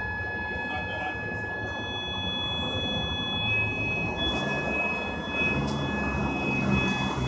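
Fire alarm sounding a steady, unbroken high tone, with a second higher tone joining about halfway through, over a low background rumble.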